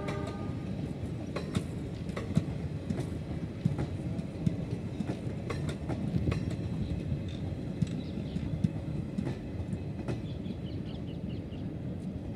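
Passenger train coaches rolling past, wheels clattering over the rail joints: a steady rumble broken by irregular sharp clicks.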